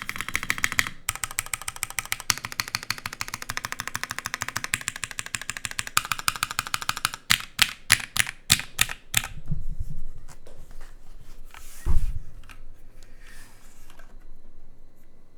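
Typing on a Merisi Works 500C/M mechanical keyboard with lubed, filmed Cherry MX2A Nixie switches, a carbon fibre plate and OG Cherry NCR dye-sub keycaps. A dense, fast run of keystrokes lasts about seven seconds, followed by a few slower separate strokes and a single heavier low thud about twelve seconds in.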